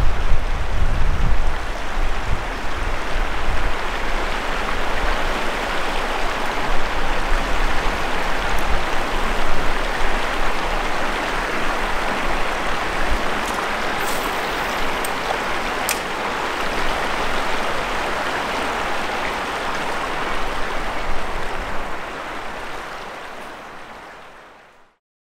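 Creek water rushing steadily, with wind rumbling on the microphone in the first second or two; the sound fades out near the end.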